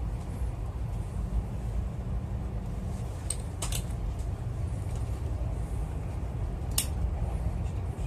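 Passenger train in motion heard from inside the carriage: a steady low rumble, with a few short sharp clicks about three and a half seconds in and again near seven seconds.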